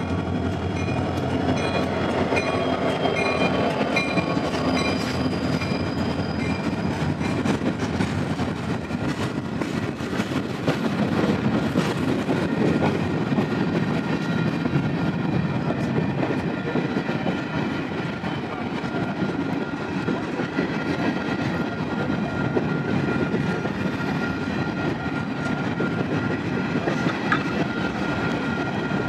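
Freight train of covered hopper cars rolling past, a steady rumble and clatter of steel wheels on the rails. A bell rings repeatedly through the first several seconds, fitting the grade-crossing signal whose gates are down.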